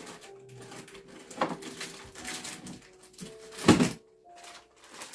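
Handling noises: rustling and knocks of things being picked up and moved, with one loud knock about three and a half seconds in.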